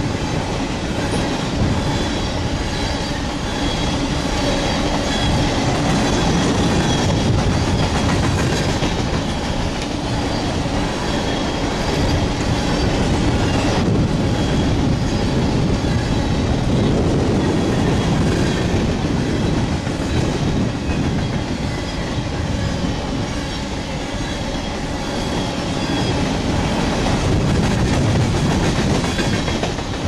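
Long freight train of hopper cars rolling past at close range: a steady rumble and clatter of steel wheels on the rails.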